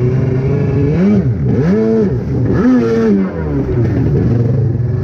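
Two-stroke stand-up jet ski engine running at a steady pitch, revved up and back down three times between about one and three and a half seconds in, then settling back to its steady note.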